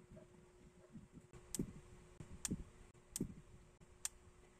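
Plastic minifigure parts clicking as a Lego-style figure is handled in the fingers and its head turned. There are four sharp, faint clicks, each under a second after the last.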